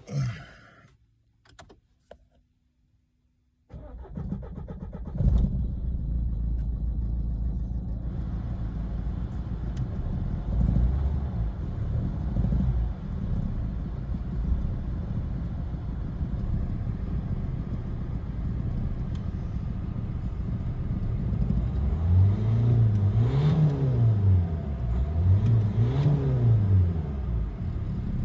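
Renault Megane 1.5 dCi four-cylinder turbodiesel starting about four seconds in and settling to idle, with small throttle blips and two revs near the end. It runs on a freshly fitted second-hand number 3 injector that has cleared the fault code, though the engine still seems a little rough.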